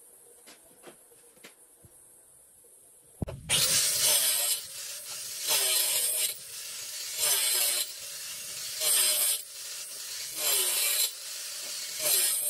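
A few faint clicks, then about three seconds in an angle grinder cuts into thin brick veneer slices: a loud, harsh grinding that swells and eases about every second and a half to two seconds as the disc bites into the brick.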